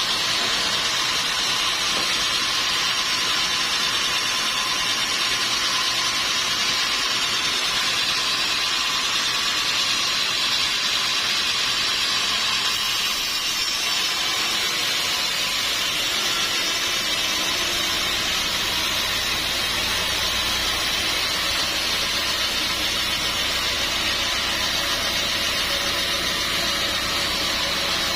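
Sawmill machinery running steadily with a constant high hiss; a low hum joins about two-thirds of the way through.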